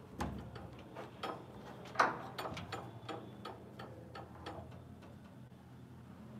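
A run of sharp, light clicks and taps, roughly three a second and unevenly spaced, the loudest about two seconds in, dying away about two-thirds of the way through.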